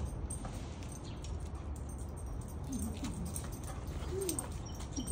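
A few short, soft animal calls from about halfway through, each rising then falling in pitch, over a steady low rumble.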